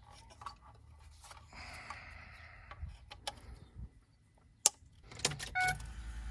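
Wiring harness connectors being handled and plugged into the back of an aftermarket touchscreen car radio: scattered clicks and rustling, with one sharp snap of a connector about three-quarters through. Near the end the radio powers up with a short electronic tone and a low hum.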